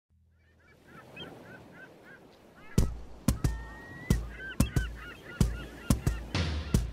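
Intro soundtrack: short bird-like calls repeating several times a second, joined about three seconds in by heavy, unevenly spaced booming drum hits, with a rushing swell near the end.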